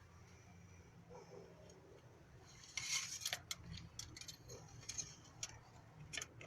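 Irregular run of light clicks and taps, about a dozen, starting a little before the middle, over a low steady hum.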